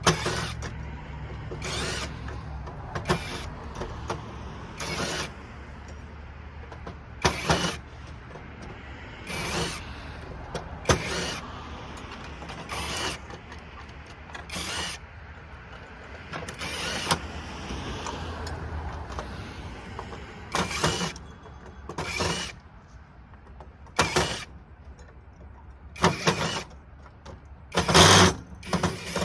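Scrap brass light sockets being worked by hand: a sharp metal clank or clatter about every two seconds, with a low hum underneath.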